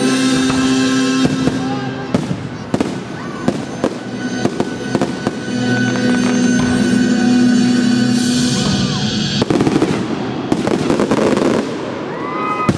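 Fireworks going off in rapid bangs and crackles over loud music.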